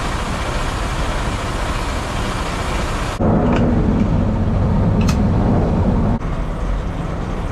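Semi-truck diesel engine running as a steady drone. About three seconds in, the sound changes abruptly to a louder, lower drone with a couple of faint clicks, then drops back to a thinner drone near the end.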